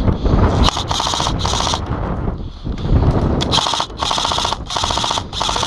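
Airsoft rifle firing on full auto in a string of short bursts, each about half a second long with brief gaps, the first starting under a second in and the bursts coming closer together in the second half.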